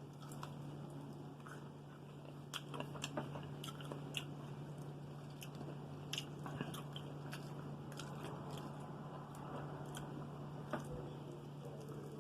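Close-up chewing and biting into crispy fried chicken wings, with irregular sharp crunches, several in quick succession about two and a half to four seconds in and a few more later, over a steady low hum.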